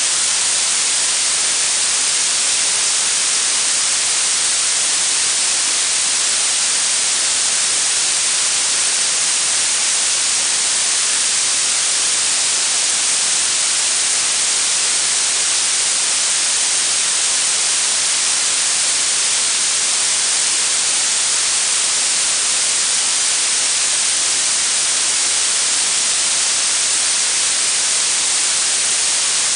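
Steady blue noise: an even, unbroken hiss weighted toward the highest pitches, with very little low end.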